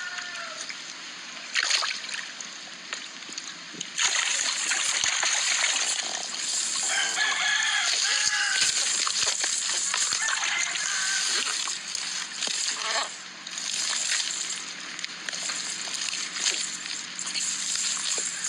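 Water splashing and sloshing, steady after a sudden rise about four seconds in. A drawn-out animal call, perhaps a bird's crow, is heard in the middle, with shorter calls near the start.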